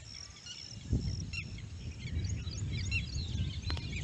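Birds chirping and calling, with many short rising and falling chirps over a low, fluctuating rumble. A single sharp knock about a second in.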